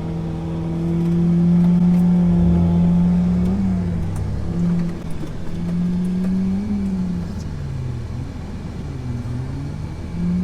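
Off-road truck engine revving in mud. It holds a steady pitch for a few seconds, then rises and dips several times as the throttle is blipped on and off.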